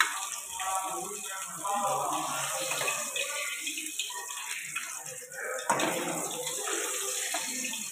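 Aila fish pieces sizzling in hot oil in a wok, with a metal spatula scraping the pan as the fish is lifted out, and one sharp knock of metal on the pan near the end.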